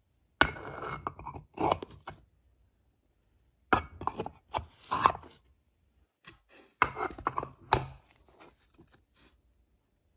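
Small toy feed pans knocking and clattering against each other as they are picked up and stacked, in three short bursts.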